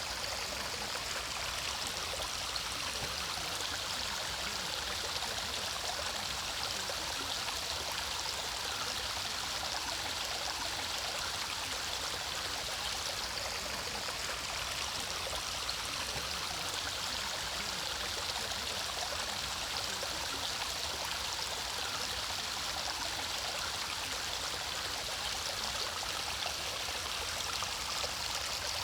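Mountain valley stream running steadily, an unbroken hiss of flowing water.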